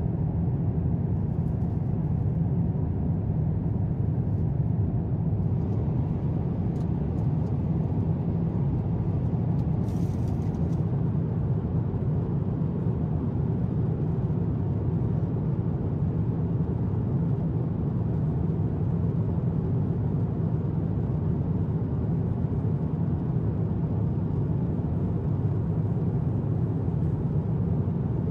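Cabin noise inside an Airbus A350-900, a steady, even low rumble of airflow and its Rolls-Royce Trent XWB engines. A faint click comes about ten seconds in.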